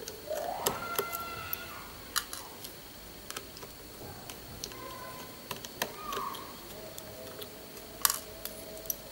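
Small irregular clicks and ticks of a precision screwdriver working the tiny screws out of a phone's plastic back cover.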